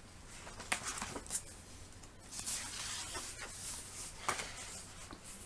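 Pages of a picture book being turned: paper rustling, with a few sharp clicks of the page and a longer stretch of sliding-paper hiss in the middle.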